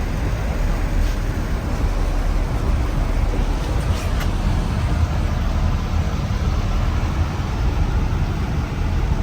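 Steady low rumble of vehicle engine and road noise from traffic on a rain-soaked road.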